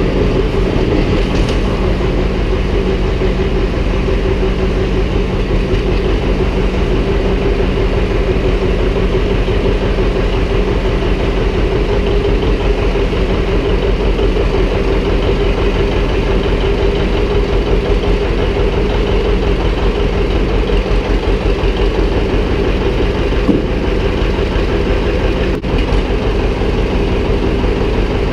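Vintage John Deere two-cylinder tractor engine running steadily at low speed, with a fine, even low pulsing.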